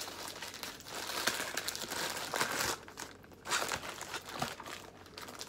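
Plastic mailer bag crinkling and crackling as hands work it open, in uneven spells with a short pause about halfway through.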